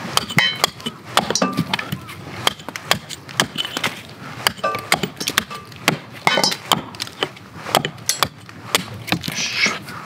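A hatchet chopping into the end of a wooden branch held upright on a stump: a quick, uneven run of sharp wooden chops, about two to three a second, some ringing briefly.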